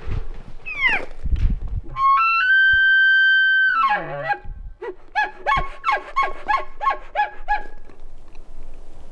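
Bull elk bugling: a short falling squeal, then a high whistle that steps up and holds for about a second and a half before dropping into low grunts. A run of chuckles follows, about four a second for nearly three seconds.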